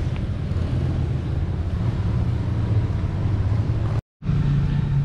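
Steady low outdoor rumble, with wind buffeting the microphone; the sound cuts out for a split second about four seconds in.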